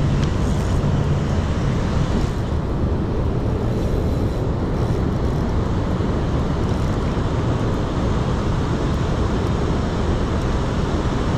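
Steady, even rush of water pouring over a low-head dam spillway, with no breaks or changes.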